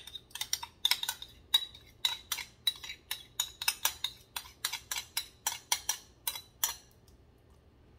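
Metal spoon clinking and scraping against a glass bowl, about three or four quick clicks a second, as thick creamy sauce is scraped out of it. The clinking stops about seven seconds in.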